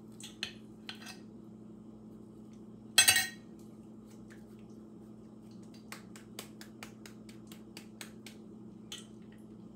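Metal spoon tapping and scraping in a glass bowl of mashed ripe plantain dough, with one loud clink of spoon against the bowl about three seconds in. Then a quick run of light slaps as a ball of the dough is patted flat between the palms.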